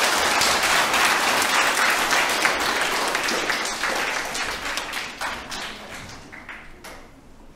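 Audience applauding award winners, a steady patter of many hands clapping that thins out and dies away over the last couple of seconds.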